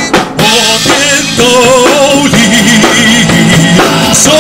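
Live rock-band music: drum kit and electric guitars with a wavering melody line over them. The music dips for a moment just after it starts.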